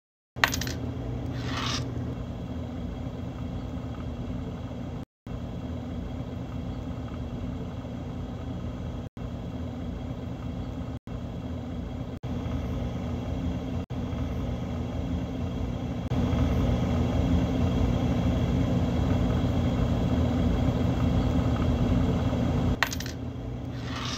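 Steady low rumble and hum, cut by a few brief dropouts and getting louder about two-thirds of the way through. A sharp metallic clink and jingle sounds just after the start, and another comes near the end.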